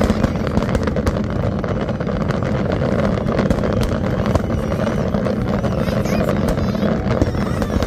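Fireworks barrage: shell bursts come so fast they merge into a continuous rumble, with many sharp cracks and crackles on top.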